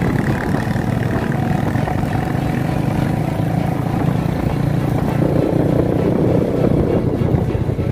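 Motorcycle engine running steadily while riding along, getting a little louder about five seconds in.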